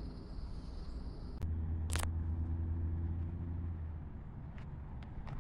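A vehicle engine running with a steady low hum that swells for a couple of seconds, and a sharp click about two seconds in.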